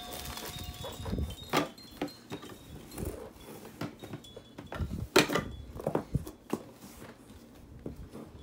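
Hard plastic toy pieces clacking and knocking irregularly as a baby handles and drops them on a foam mat, the sharpest knock about five seconds in.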